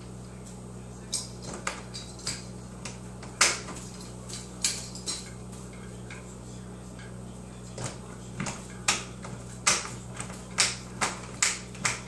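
A run of short, sharp clicks and taps, about twenty in all at an irregular pace, starting about a second in and pausing for a few seconds midway, over a steady low hum.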